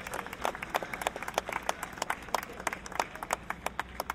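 Crowd applauding: many irregular hand claps that thin out toward the end.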